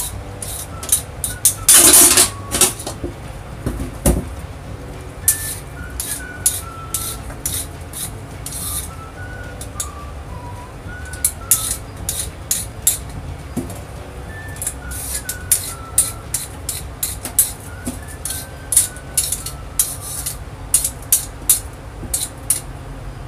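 Hand-held Y-peeler scraping the skin off a Chinese yam in quick, irregular strokes, with a longer, louder scrape about two seconds in. Soft background music plays underneath.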